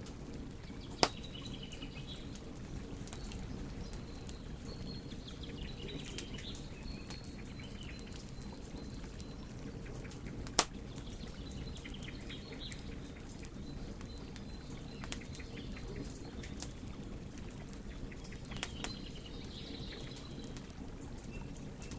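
Wood fire burning with a steady low rumble and scattered small crackles, broken by two loud sharp pops, one about a second in and one near the middle. Faint thin, wavering high whistles come and go.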